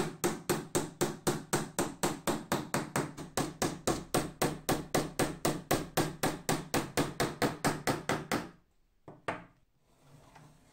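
Claw hammer driving a brass-headed upholstery tack through leather into the bellows: quick, even taps about four a second for some eight seconds, then they stop, with one more knock about a second later.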